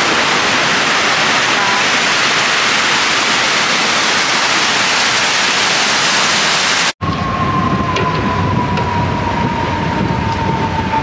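Loud, steady rush of water cascading down the walls of the 9/11 Memorial reflecting pool. About two-thirds of the way through it cuts off abruptly to outdoor city noise with a low rumble and a steady high tone that drifts slightly lower.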